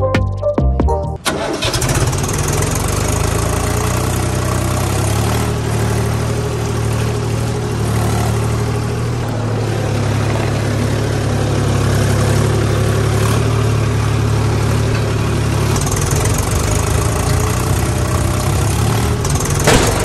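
A brief bit of music, then about a second in a tractor engine sound comes in and runs steadily at idle for the rest of the time.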